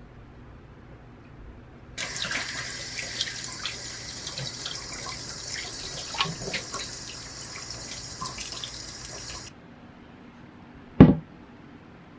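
Kitchen tap running onto peaches as they are rubbed clean by hand over a glass bowl in a stainless steel sink, splashing; the water starts about two seconds in and stops abruptly after about seven and a half seconds. Near the end comes a single low thump, the loudest sound.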